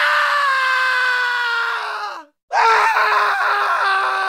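Man screaming: one long, loud scream whose pitch sinks slowly and then drops away about two seconds in, then after a short break a second long scream held at a steady pitch.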